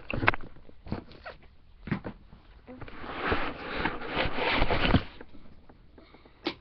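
Rustling and knocking of things being handled close to the microphone, with a louder stretch of rustling from about three to five seconds in.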